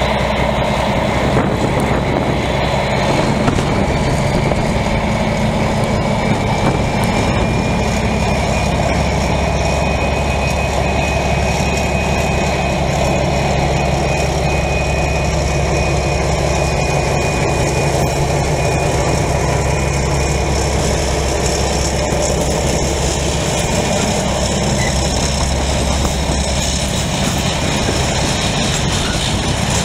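CP 1900-class diesel locomotive's engine running as it passes hauling a long freight train, then the freight wagons rolling past.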